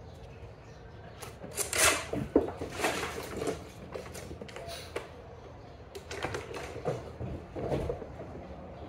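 Quick footfalls, knocks and scuffs on a wooden plank floor, in two clusters a few seconds apart.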